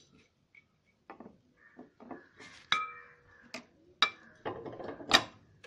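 Small metal parts of a ceiling fan clinking and knocking together as they are handled: about a dozen irregular knocks, louder in the second half. One clink, nearly three seconds in, rings briefly with a clear tone.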